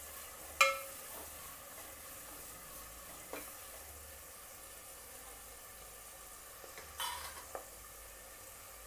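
Sliced onions and green chilies frying in oil with a steady sizzle while a metal ladle stirs them. The ladle strikes the pot with a sharp ringing clink about half a second in, taps once more a few seconds later, and scrapes and clinks again near the end.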